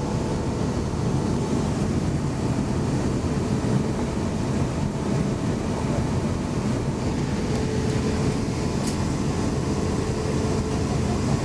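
Steady cabin noise of an Airbus A350-900 taxiing, heard inside the cabin, its Rolls-Royce Trent XWB engines at low taxi power with a faint steady hum.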